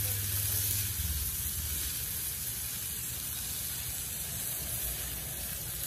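Burger patties topped with bacon sizzling on a hot Blackstone flat-top griddle: a steady hiss. A low hum drops away about a second in.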